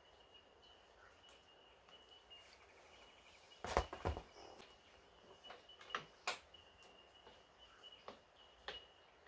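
Faint scattered clicks and knocks of parts and tools being handled, with a louder cluster about four seconds in, over a faint steady high-pitched tone.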